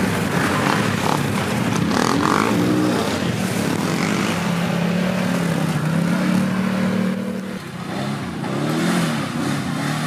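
Quad bike engines revving, their pitch rising and falling several times, held steady for a few seconds in the middle, with a brief drop about three-quarters of the way through.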